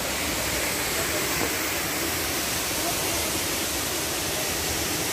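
Small waterfall with a steady rush of falling water.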